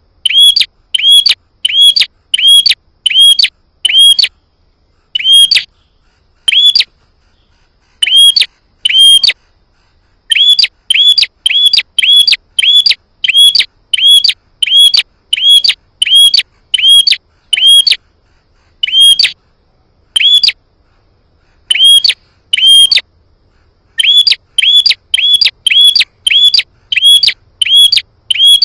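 Prenjak song played as a lure (masteran): loud, sharp repeated chirps about two a second, in runs broken by short pauses.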